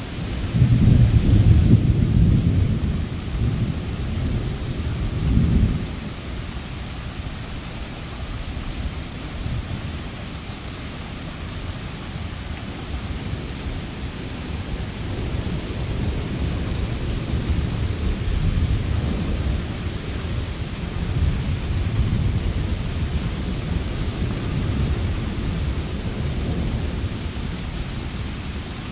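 Thunder rumbling loudly for the first few seconds over steady rain, then further softer, longer rolls of thunder under the rain in the second half.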